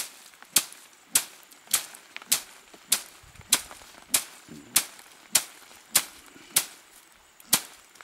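A stick beating a pile of dried crop stalks on a plastic tarp to thresh them by hand: sharp, evenly spaced whacks about every 0.6 s, with one skipped beat about seven seconds in.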